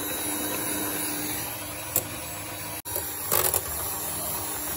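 Electric mixer whisking the zefir mass with a steady motor whirr at reduced speed while hot sugar syrup is poured in, with a brief click about two seconds in and a short louder burst a little after three seconds.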